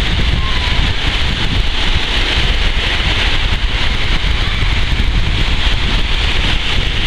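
Strong onshore wind buffeting the microphone in a steady, heavy rumble, over the hiss of sea waves washing onto a sandy beach.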